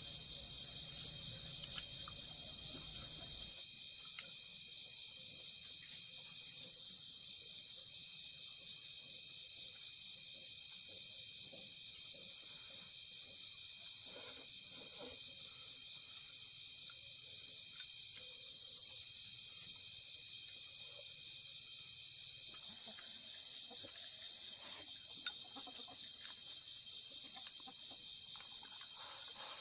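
Steady chorus of insects chirring, a dense high-pitched drone, with a fainter second call switching on and off above it. The chorus thins and drops slightly in level about three-quarters of the way through.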